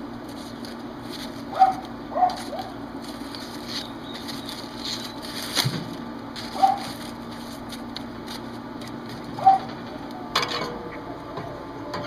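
Metal tongs turning husk-on ears of sweet corn on a grill grate: the dry, charred husks crackle and rustle, with sharp clicks of tongs against the grate. A few short high chirps stand out as the loudest sounds, twice near the start and twice later.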